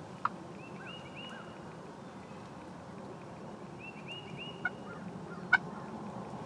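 Wild turkeys calling: groups of short, repeated arched notes, with three brief sharp calls, the loudest about five and a half seconds in.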